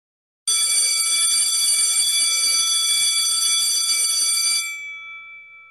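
Standard Electric Time Co. electric school bell ringing steadily with a metallic rattle for about four seconds, starting about half a second in. It then cuts off, and its ring dies away over the last second.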